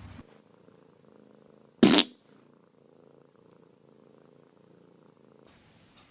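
An animal purring faintly and steadily, broken by one short, loud burst about two seconds in.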